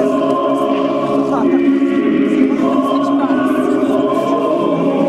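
Choir singing a slow Orthodox church chant, loud and steady, many voices holding long notes.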